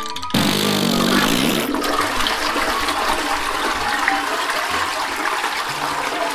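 Toilet flush sound effect: a sudden whoosh about a third of a second in, with a swirling gurgle for just over a second, then a steady rush of water running through the pipes.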